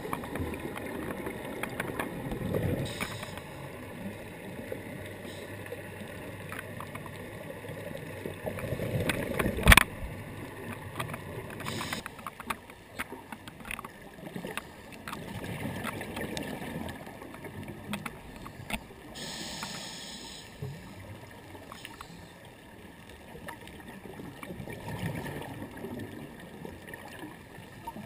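Underwater sound of a scuba diver's exhaled bubbles, a rushing gurgle that swells and fades every several seconds with the breathing, with one sharp knock about ten seconds in.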